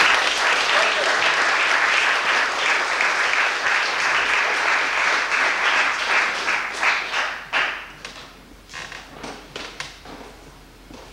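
Audience applauding: a steady wash of clapping that thins to scattered single claps after about seven and a half seconds and dies away near the end.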